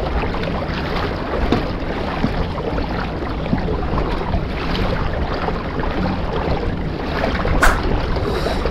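Water lapping and splashing against the hull of a pedal kayak under way, with wind noise on the microphone. One sharp click or knock near the end.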